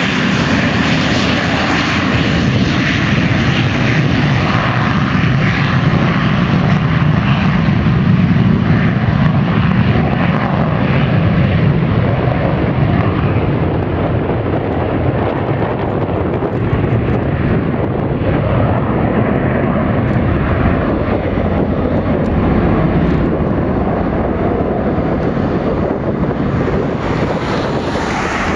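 Boeing 737-200 Advanced's Pratt & Whitney JT8D turbofan engines running at high power on the takeoff roll: a steady, loud jet noise that swells about eight seconds in and then slowly fades.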